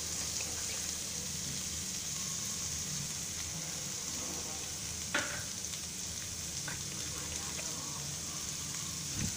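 Chopped cabbage sizzling in oil in a frying pan, a steady hiss. There is a single sharp click about five seconds in.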